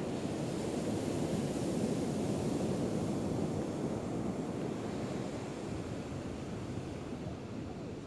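Ocean surf breaking and washing up the beach, a steady rushing that swells a little about two seconds in and then eases off.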